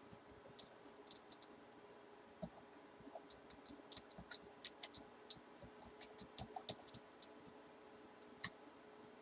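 Faint, irregular clicks and light taps over a low hum, thickest in the middle and with a sharper tick near the end.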